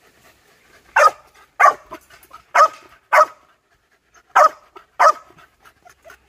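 A puppy barking six times: short, sharp barks in three pairs, each pair about a second and a half after the last.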